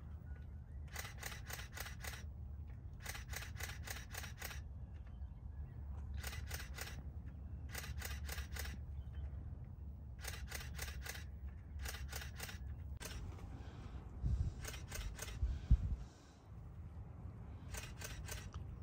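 Camera shutter firing in rapid bursts of about five or six clicks, a burst every second or two, over a steady low rumble. Two dull thumps come near the end.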